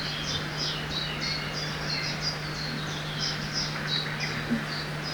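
Forest ambience by a river: a small bird repeats short, high, falling chirps about three times a second. Under the chirps runs an even rushing of river water and a steady low hum.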